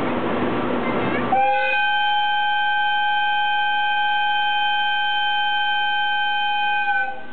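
ED76 electric locomotive sounding its horn in one long steady blast of about five and a half seconds, starting about a second and a half in: the signal for the train's departure from the station.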